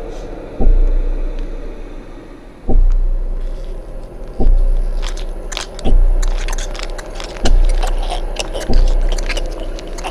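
Horror-film sound design: deep booming hits repeat about every second and a half, each dying away slowly. From about halfway, scratchy crackling and scraping sounds are layered over them.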